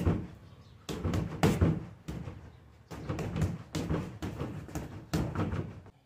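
Boxing-gloved punches landing on a freestanding heavy bag, thrown in quick combinations of several hits with short pauses between.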